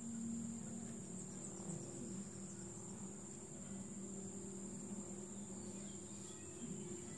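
Domestic cat growling low and steadily as another cat squares up to it for a play fight. A steady high insect drone runs behind.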